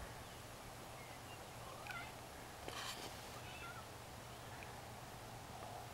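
Savannah cat making a few faint, short chirping meows, about two seconds in and again a second and a half later, with a brief rustle in between.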